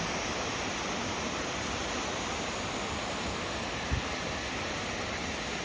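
Steady rush of a waterfall's falling water, with a brief low thump about four seconds in.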